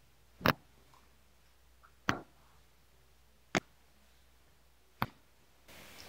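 Four sharp cracks, about one and a half seconds apart, from the vertebral joints of the upper (thoracic) spine as the hands press down during a spinal manipulation. The practitioner attributes the click to joint lubricant returning between the joint's rubbing surfaces.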